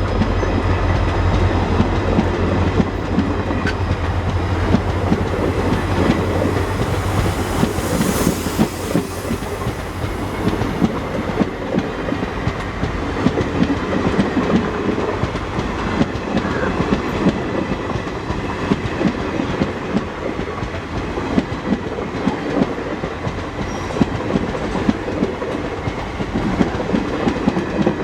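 A long rake of NMG car-carrier coaches rolling past at speed, wheels clattering rapidly over the rail joints in a steady clickety-clack. A deep low rumble underneath stops about seven seconds in.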